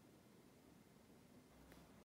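Near silence: faint background hiss.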